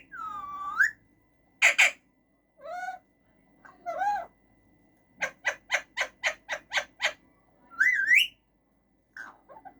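Male Alexandrine parakeet calling in its cage: a series of separate pitched calls and squawks with bending pitch, then a quick run of about eight short sharp squawks at roughly four a second, and a rising call near the end.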